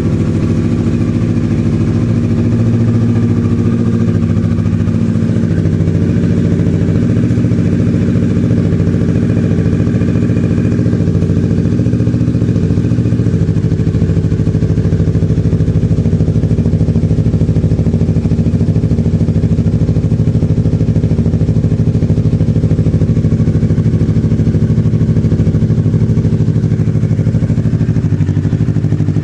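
Kawasaki Ninja 650's parallel-twin engine idling steadily through an aftermarket Yoshimura Alpha slip-on exhaust.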